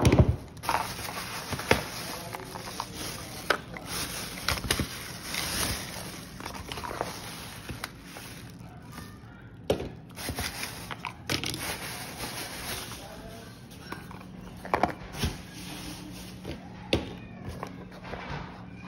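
Cosmetics being handled and set down on a wooden table among plastic shopping bags: irregular clicks and knocks of bottles, packages and a small box, with plastic bag rustling between them.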